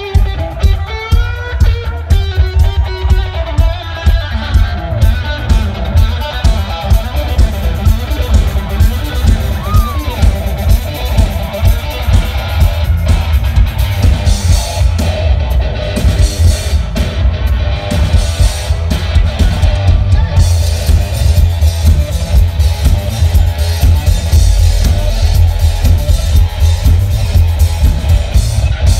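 Live rock music from a guitar-and-drums duo: an electric guitar played hard through a stage amplifier over a drum kit, loud, with a steady driving beat.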